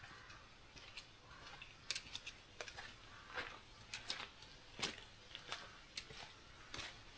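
Quiet, irregular light clicks and taps from a hiker on the move, coming roughly one or two a second, over a faint steady background.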